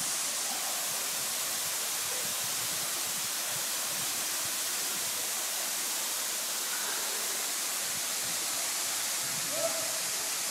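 Tall waterfall plunging down a rock face into a pool, a steady rushing hiss of falling water.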